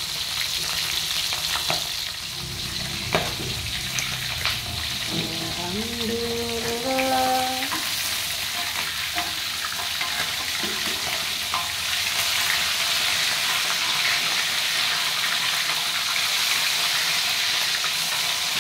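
Fish frying in hot oil in an aluminium wok, a steady sizzle, with a metal spatula knocking and scraping against the wok a few times as the pieces are turned.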